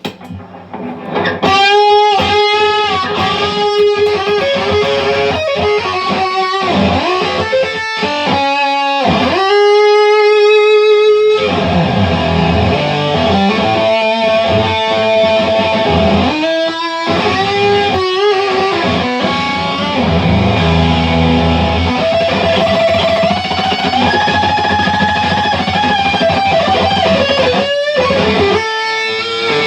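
Electric guitar played through an Electro-Harmonix Big Muff Pi fuzz pedal stacked on distortion, into a Marshall Origin 20-watt amp. It plays heavily fuzzed riffs of picked notes and chords, with long held notes and string bends, broken by short pauses between phrases.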